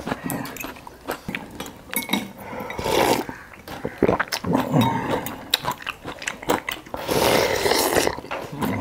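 Slurping of noodles and hot soup from glass bowls, with metal spoons and forks clicking against the glass. Longer slurps come about three seconds in and again around seven to eight seconds.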